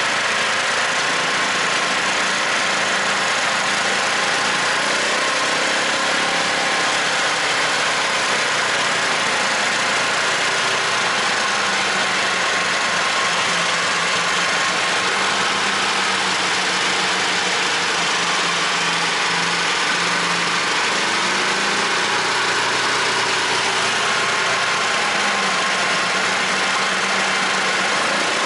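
Homemade snowmobile's Lifan 20 hp engine running steadily under throttle as the machine drives through deep snow, heard from the driver's seat. The engine note shifts slightly up and down now and then.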